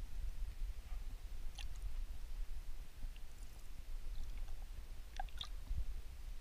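Muffled underwater ambience picked up by a submerged camera: a steady low rumble with a faint hiss and a few scattered faint clicks.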